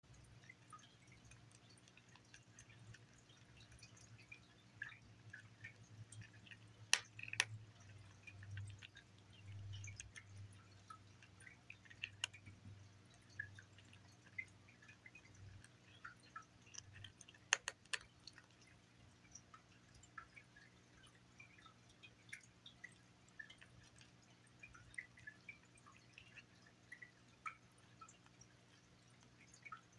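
A kitten crunching dry kibble: quiet, scattered small crunches throughout, with a few sharper clicks about a quarter of the way in and again just past halfway, over a steady low hum.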